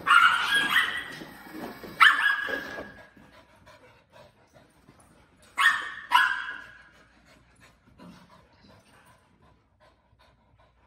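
Dogs barking in rough play: four high, ringing barks, two near the start about two seconds apart and two close together around the middle, then only faint scuffling.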